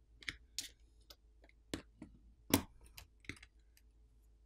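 Sharp plastic clicks and snaps, about ten at uneven spacing with the loudest about two and a half seconds in, as a plastic pry tool works the plastic cover around the cameras of a Sony Xperia Pro-I loose from the phone's frame.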